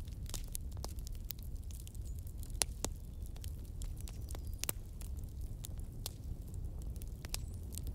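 Scattered crisp ticks and rustles from hands folding a thin samosa pastry sheet into a cone and filling it with minced-meat (keema) mixture, over a steady low rumble.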